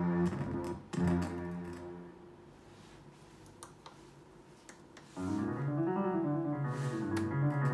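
KORG SP-250 digital piano sounding through its built-in speakers: held keyboard chords die away over the first two seconds, a few small clicks follow in a quieter stretch, and about five seconds in a new passage of moving notes starts.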